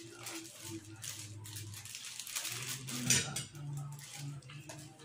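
Tabletop eating noises: a thin disposable plastic glove crinkling as it is handled, with light clinks of utensils and dishes. The loudest crinkle comes about three seconds in.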